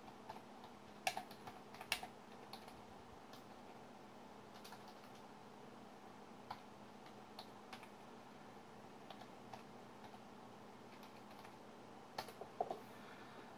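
Computer keyboard keys tapped one at a time as a terminal command is typed, faint scattered clicks with small groups a second or two in and near the end, over a faint steady hum.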